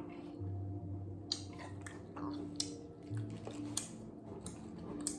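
Skittles being chewed quietly, with a few sharp clicks over a faint steady hum.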